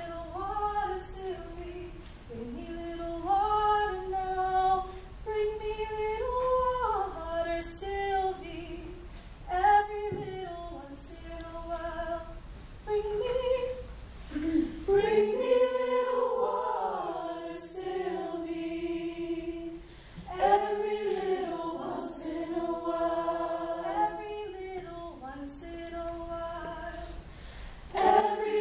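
A choir singing a cappella: a thinner sound for the first half, growing fuller from about halfway through as more voices come in. A few sharp claps fall here and there.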